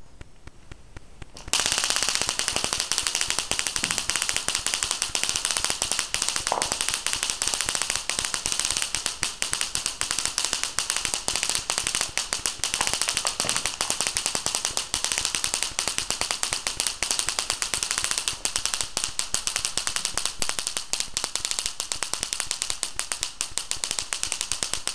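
High-voltage spark discharge device crackling: a rapid, dense, steady electric crackle that switches on abruptly about one and a half seconds in, loosing a stream of sparks to 'charge up the air'.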